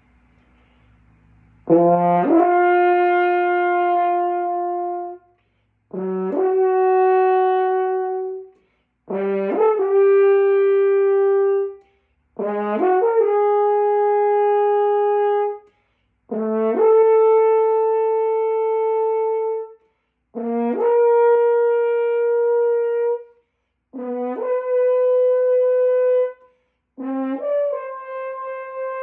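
Brass instrument playing warm-up long tones: eight held notes of about three seconds each, separated by short breaths. Each note scoops up from below into a steady tone, and the held pitch steps slightly higher from one note to the next.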